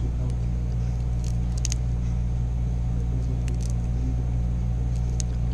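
Steady low hum throughout, with a few faint, sharp clicks and crackles as boiled shellfish shells are peeled by hand.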